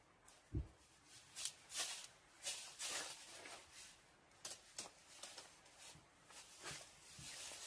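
Irregular rustling and handling noises, a dozen or so short scrapes and crinkles, with a soft low thump about half a second in.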